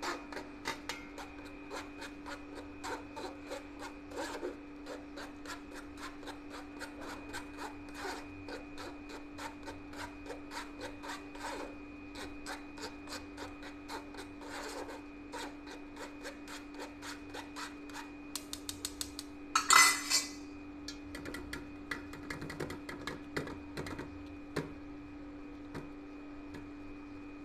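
A spoon scraping flour through a stainless-steel mesh sieve into a steel bowl, in quick repeated rasping strokes, with a brief louder rattle about two-thirds of the way through and only a few scattered taps after it. A steady faint hum runs underneath.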